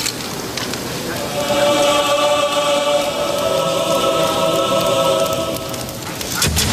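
Choir voices holding one sustained chord that comes in about a second in and fades out near the end. The chord sits over a steady crackling haze. A sudden loud burst with a low rumble comes near the end.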